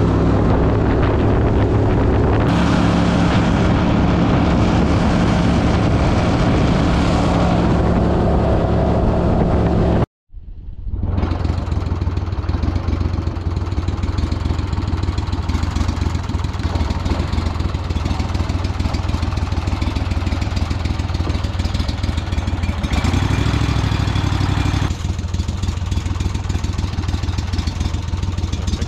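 Gatortail surface-drive mud motor running steadily with a deep engine drone. The sound drops out briefly about ten seconds in, then the motor is heard running again.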